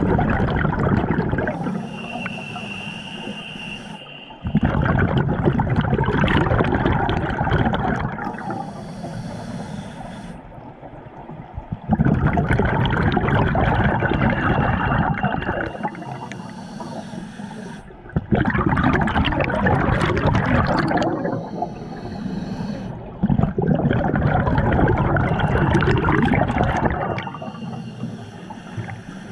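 Scuba diver breathing underwater through a regulator, about five breaths in a row. Each inhale is a thin hiss, sometimes with a faint whistle. Each exhale is a loud rush of bubbles that starts suddenly and fades over a few seconds.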